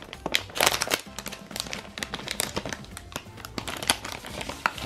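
Shiny plastic blind bag crinkling as it is opened and handled to get the card out, over background music.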